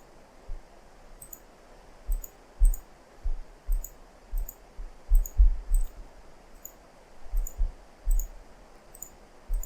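Computer mouse buttons clicking irregularly, about two clicks a second, each a sharp tick with a dull low knock, over faint room hiss.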